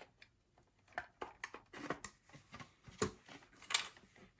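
Irregular clicks, taps and light knocks of parts being handled as an old rotary phone is taken apart, with the sharpest knocks about three seconds in.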